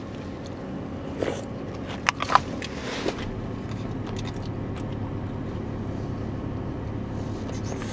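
A spoon clicking and scraping against a plastic cup of shaved ice a few times in the first three seconds, over the steady low hum inside a car.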